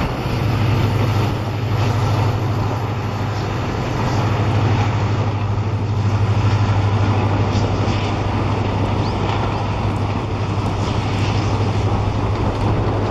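Steady rumble of a passenger express train's coaches rolling along the track, with faint irregular clicks from the wheels.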